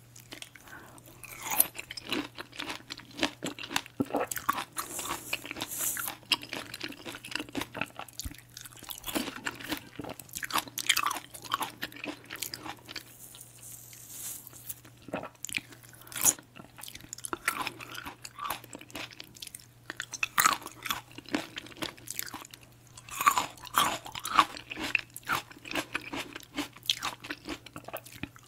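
Close-miked eating of fresh fruit, mandarin orange segments and berries, chewed and bitten in a steady run of short, sharp mouth sounds.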